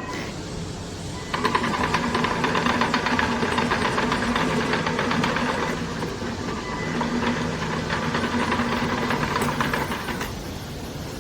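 Remote-control electric lawn mower running, with its motor and blades making a rapid, rattling clatter over a low hum. It starts about a second in and eases off near the end.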